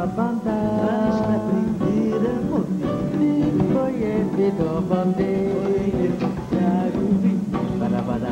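A woman singing a Brazilian song, accompanied by a nylon-string acoustic guitar.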